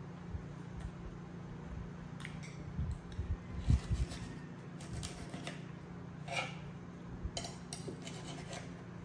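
Knife and fork scraping and clinking against a plate while cutting a fried egg, with a few dull knocks on the table partway through. A steady low hum runs underneath.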